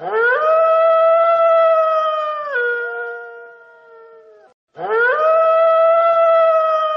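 A wolf howling twice. Each howl rises quickly, holds a steady pitch for about two and a half seconds, then drops to a lower pitch and fades; the second starts just after the first dies away, a little under five seconds in.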